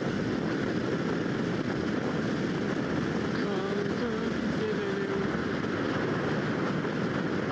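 Motor scooter riding at speed, heard from the rider's seat: a steady rush of wind on the microphone mixed with the engine and tyre noise.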